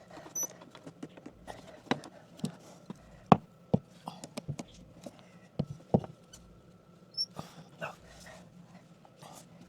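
Irregular clicks and knocks of hand tools and PEX pipe fittings being handled and worked into a tight space, with two brief high squeaks. The sharpest knocks come about three and six seconds in.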